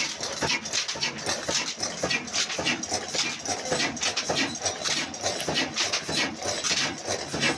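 Old Ruston single-cylinder diesel engine running at speed, a rapid, even clatter of closely spaced strokes.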